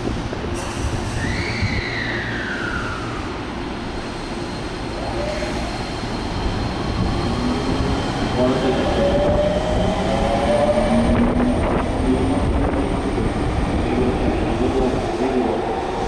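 Tokyu Toyoko Line electric commuter train pulling out of the platform. A falling whine comes about a second in; later its traction motors whine up in pitch as it accelerates over a steady rail rumble.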